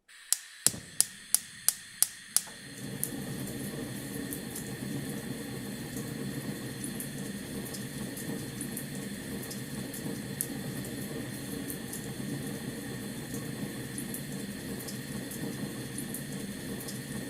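A fire burning: a quick run of sharp crackles and pops in the first two seconds or so, then the steady rushing noise of the flames with faint scattered crackles.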